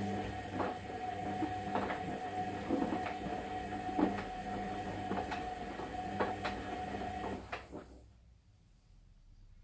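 Bendix front-loading washing machine's drum turning during the wash, the motor's steady whine mixed with repeated knocks of the wet load dropping in the drum. The drum stops about eight seconds in, a pause in the wash rotation.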